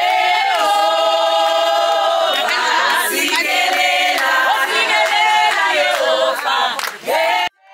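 A group of voices singing together without instruments, holding long notes. The singing cuts off abruptly about seven and a half seconds in.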